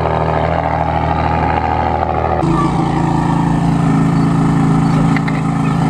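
V12 supercar engine idling steadily, a low even drone with no revving. About two and a half seconds in, the sound cuts abruptly to a slightly higher, equally steady idle note.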